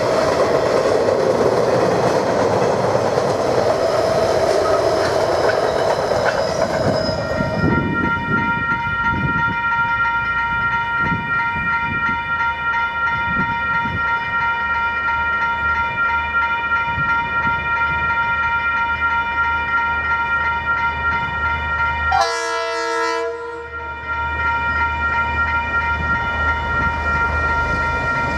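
Freight train wagons rolling over a bridge: a steady rush of wheel noise that cuts off about seven and a half seconds in. Then a steady high chord of warning tones, with a deep diesel locomotive rumble building underneath as a freight train approaches, broken about three-quarters of the way through by a short, lower-pitched blast.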